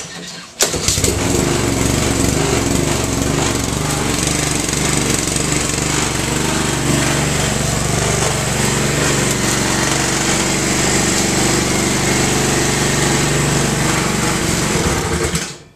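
Honda HRR216 walk-behind lawn mower engine starting at once about half a second in, running at a steady speed, then shut off near the end and dying away.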